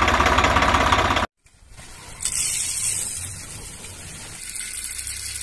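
A miniature DIY walking tractor running with a steady, rapid engine-like putter that cuts off about a second in. After that comes a much softer hissing rustle as dry lentils are poured into a small homemade grinder.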